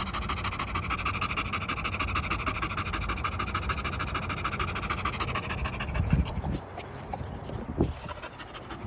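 A dog panting fast, close to the microphone, in quick even breaths. The panting weakens about six seconds in, and two low thumps come near the end.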